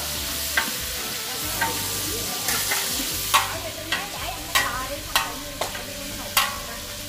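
Long metal ladle stirring tomatoes, lemongrass and garlic frying in oil in a large aluminium stockpot: a steady sizzle with sharp clinks and scrapes of the ladle against the pot, about once a second.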